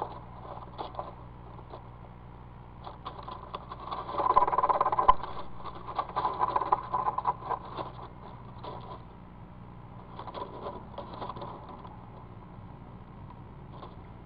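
Eastern screech owl scooting and scraping on the floor of a wooden nest box, shuffling the leaves and debris with its belly and feet: instinctive nest-making. Scratchy rustling comes in fits, loudest in a stretch a few seconds in and again more softly later, over a steady low hum.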